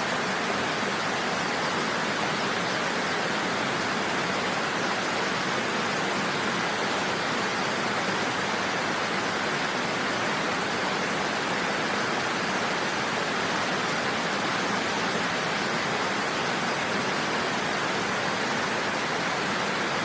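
Waterfall sound effect: falling water making a steady, even hiss with little low rumble, unchanging throughout.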